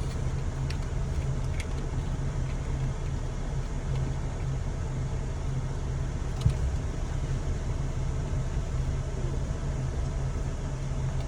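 Steady low hum of a car idling, heard from inside the cabin, with one sharp click about six and a half seconds in.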